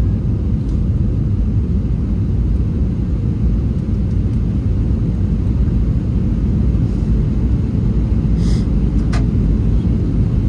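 Airbus A321 cabin noise during the descent: a steady low drone of the engines and airflow, with two faint brief clicks near the end.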